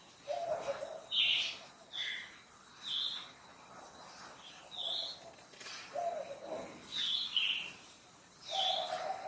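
Wild birds calling: a low held call three times, about a second in, at six seconds and near the end, with short higher calls scattered between them.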